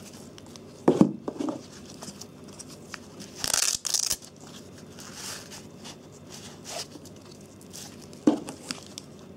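Flashlight belt holster being handled: a few short scraping and rustling noises, the loudest a rasping rip lasting about half a second, about three and a half seconds in.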